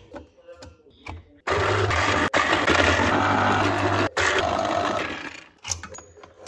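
Electric citrus juicer running while an orange half is pressed onto its spinning reamer: a loud motor hum with a grinding, juicy noise for about four seconds, broken twice by brief cuts. A clunk near the end.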